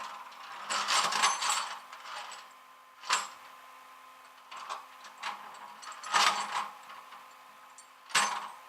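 Metal tools clattering and rattling in irregular short bursts: hand tools being handled and used on a car.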